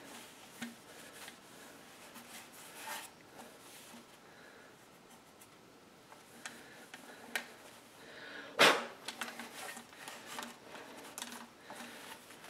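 Quiet rubbing and handling noises on a plastic tail light lens being worked by hand, with faint scattered scrapes and clicks. One sharp knock about eight and a half seconds in is the loudest sound.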